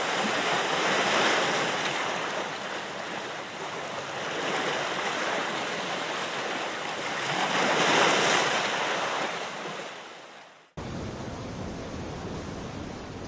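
Waves washing in on a shore, surging three times in slow swells and fading out near the end, then cut off abruptly by a steady, duller hiss.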